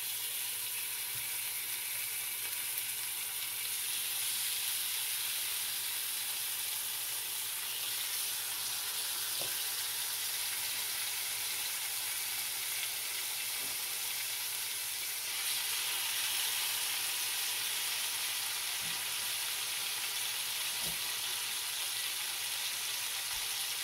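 Chicken pieces searing skin side down in hot oil in a cast iron skillet: a steady frying sizzle that gets a little louder about two-thirds of the way through, as more pieces go into the pan.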